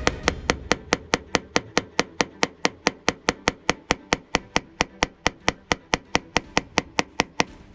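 Rapid, evenly spaced light taps, about five a second, of a paintless dent repair knockdown tool or tap-down hammer on a car's sheet-metal panel, blending out the dent. They stop shortly before the end.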